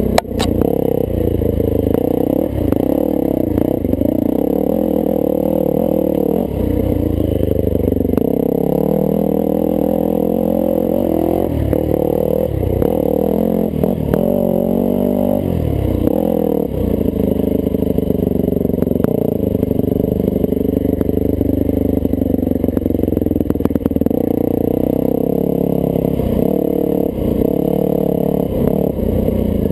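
1998 Yamaha YZ400F's four-stroke single-cylinder engine running under way on a dirt trail, its pitch rising and falling with the throttle. Scattered knocks and clatter come from the bike over the bumps.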